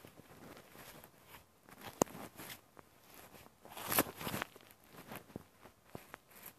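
Scattered rustling and handling noise from a phone held close to fuzzy fabric. There is a sharp click about two seconds in and a louder rustle about four seconds in.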